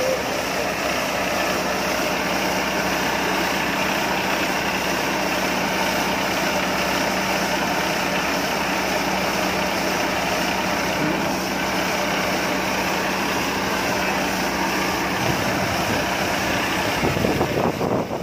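Rice combine harvester's engine running steadily with a constant hum. Near the end, rougher, uneven noise breaks in.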